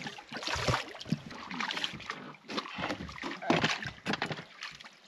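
Irregular splashing and knocking as a hooked gurnard is brought aboard in a landing net.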